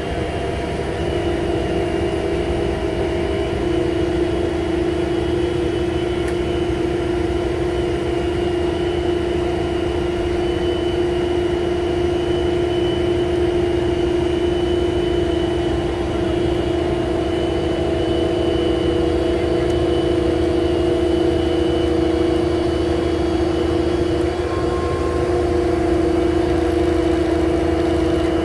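Mobile crane's diesel engine running steadily with a constant high whine while the crane hoists and swings a heavy load.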